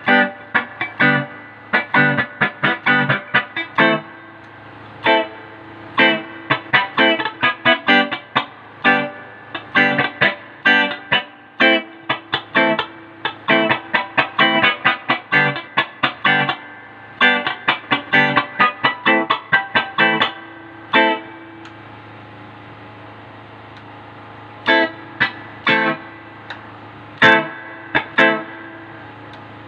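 Hazelman Les Paul-style electric guitar played through the vibrato channel of a 1979 Fender Twin Reverb into a 1966 Fender Bassman cabinet: separate picked notes and chords with short gaps between them. Past the two-thirds mark the playing stops for about three seconds while the amp's hum carries on, then a few more chords are struck.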